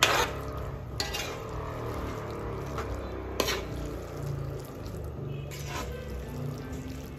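Metal spoon and fork stirring and tossing spaghetti in tomato meat sauce in a large metal wok: wet squelching of the sauced noodles with a few sharp clinks and scrapes against the pan, the loudest at the start and about one and three and a half seconds in.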